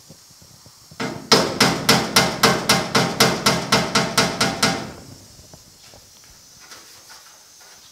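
Body hammer tapping the sheet-steel cab panel of a 1950 Chevy truck against a block of wood held behind it, knocking down a high spot beside the antenna hole. A quick run of about sixteen light, evenly spaced strikes, about five a second, that starts about a second in and stops near the middle.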